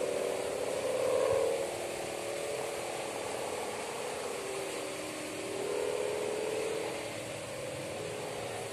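Kite-borne sendaren hummer with a mika (plastic) ribbon, buzzing in the wind with a snoring drone that swells and fades, loudest about a second in and again around six seconds, over wind noise.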